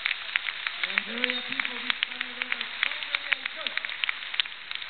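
Audience applauding, with separate claps standing out from the steady clapping. A faint voice speaks briefly about a second in.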